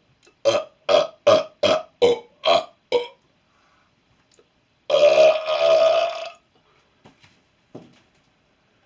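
A man burping on purpose: a rapid run of about seven short burps, two or three a second, then after a pause of about two seconds one long drawn-out burp lasting about a second and a half.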